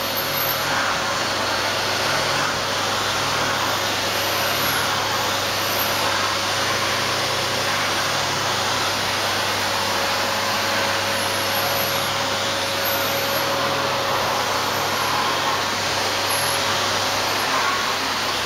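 Household vacuum cleaner running steadily: a constant rushing noise over a low hum.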